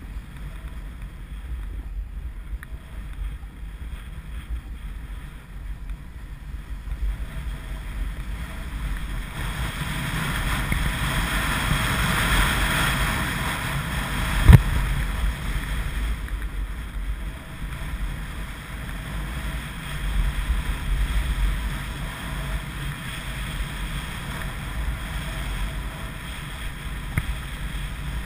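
Wind buffeting the microphone of a camera moving downhill on a ski run, over the hiss of sliding on packed snow, which grows louder for a few seconds mid-way. A single sharp knock comes about halfway through.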